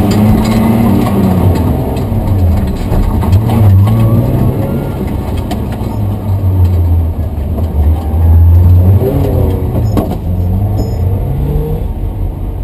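BMW M3 rally car's engine heard from inside the cabin, running at low revs as the car moves slowly, with a couple of short rises in revs partway through.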